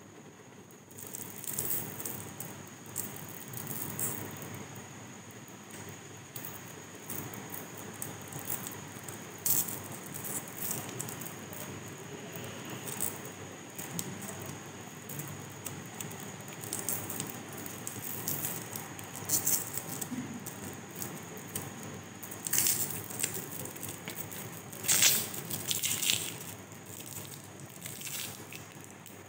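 Foil wrapper on a chocolate lollipop crinkling and crackling as fingers pick at it and peel it off. The crinkles come in irregular bursts, with the loudest near the end.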